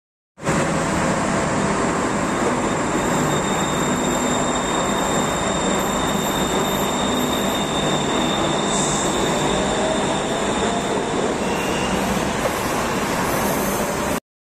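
A Bangkok BTS Skytrain EMU-A1 (Siemens) electric train pulling out of an elevated station. It gives a steady running noise of motors and wheels on the rails, with high steady tones over it. It starts and stops abruptly.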